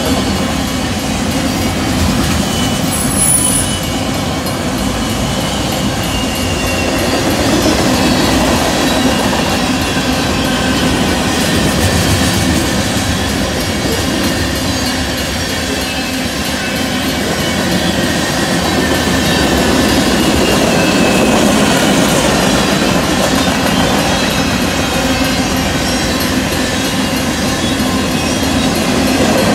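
Freight train cars rolling past at speed: a steady, loud rumble and clatter of steel wheels on the rails, with thin high wheel squeals drifting slowly in pitch and a short sharper squeal about three seconds in.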